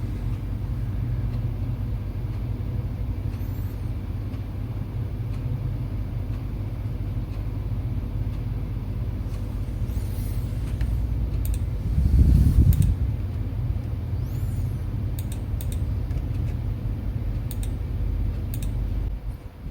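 Steady low background rumble with no speech, swelling louder for about a second around twelve seconds in, with a few faint ticks.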